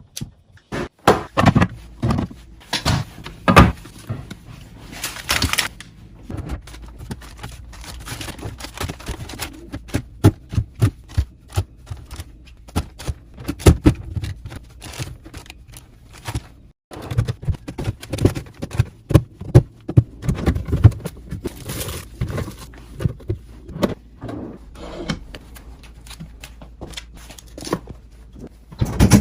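Food containers, bottles and packages being handled and set down while restocking a refrigerator: an irregular run of thunks, clicks and scrapes, with stretches of packaging rustle.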